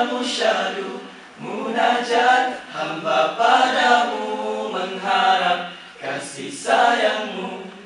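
A small group of men singing a nasheed a cappella, with no instruments, in phrases of a second or two.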